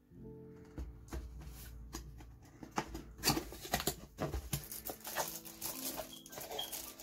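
Plastic bag crinkling and cardboard rustling as a hand opens a box and presses on the bagged sustain pedal inside, a dense crackle loudest about three to four and a half seconds in. Soft background music plays underneath.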